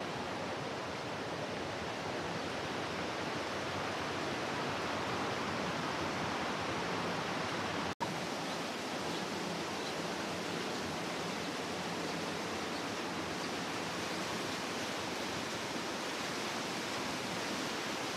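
Steady rushing water, a dense even roar with no other sound standing out, breaking off for an instant about halfway through.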